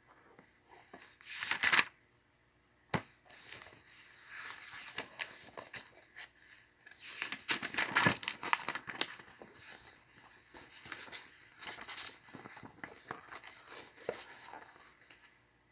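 Paper rustling and crinkling as sheets of a workbook are handled: a short loud swish about a second in, then about twelve seconds of irregular crackly rustling, loudest in the middle.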